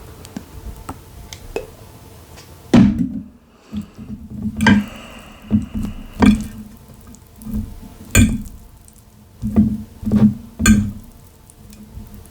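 Eating noodles close to the microphone: a run of about seven sharp, irregular slurping and smacking sounds, starting about three seconds in, with small clicks and knocks between.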